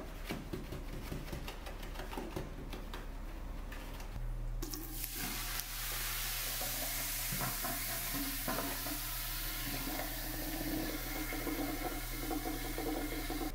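Soft rustling of baking soda sprinkled from a box into a sink drain, then, about four and a half seconds in, a steady fizzing hiss as vinegar reacts with the baking soda and foams in the basin.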